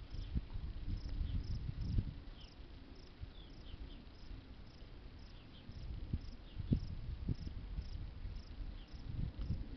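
Faint, high insect chirping that repeats a few times a second, over a low rumble. A few dull knocks come through, the loudest about two seconds in and again near seven seconds.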